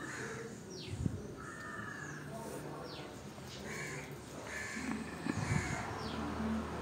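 Faint harsh bird calls, repeated several times, with short high chirps between them. Two soft knocks, about a second in and again about five and a half seconds in.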